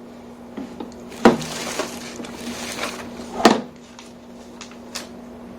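Handling of plastic humidifier parts: a few sharp knocks and clatter, with a short rustling hiss between the first two knocks, over a steady low hum.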